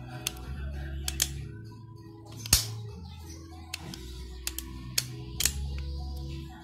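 Background music with sustained low notes, over a handful of sharp clicks as the small plastic and metal parts of an opened circuit breaker are handled; the loudest click comes about two and a half seconds in.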